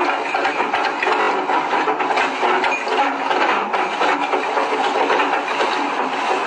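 Fishing trawler's engine and deck winch running steadily with a rapid mechanical clatter as the loaded trawl net is hoisted aboard up the ship's side.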